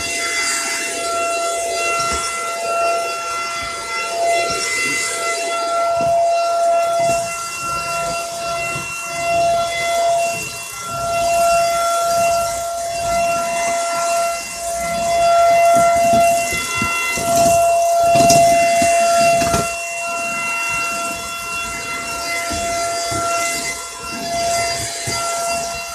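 Dirt Devil Power Stick 4-in-1 stick vacuum running: a steady high-pitched motor whine with a rushing hiss of air, swelling and easing in loudness as it is pushed over the floor.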